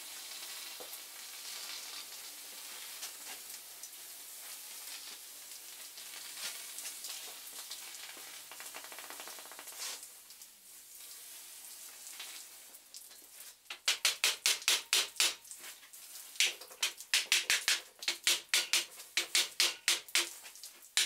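Water from a hose hissing and sizzling into steam on a hot steel clinch rim shrunk onto a wooden wheel, cooling it so it grips the felloes. About two-thirds of the way through, a louder fast, even beat of sharp strokes, about five a second, takes over.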